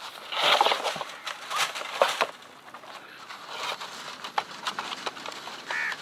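Rustling, scraping and light knocks from handling a wooden wire-mesh bird cage on dry grass, busiest in the first two seconds. Near the end a crow starts cawing.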